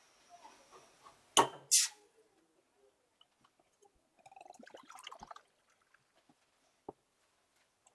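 A swing-top beer bottle opened with two sharp pops of its stopper about a second and a half in. A little later the beer is poured from the bottle into a glass mug for about a second, and there is a single short click near the end.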